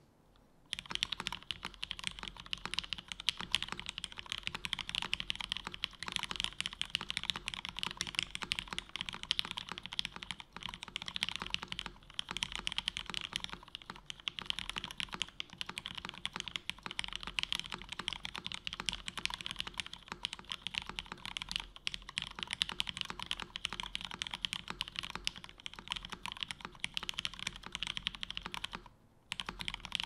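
Continuous fast typing on a custom zekk.works Ogre WKL mechanical keyboard with lubed Cherry Hyperglide Black linear switches on a polycarbonate half plate and GMK keycaps. The dense keystrokes start just under a second in and stop briefly about a second before the end.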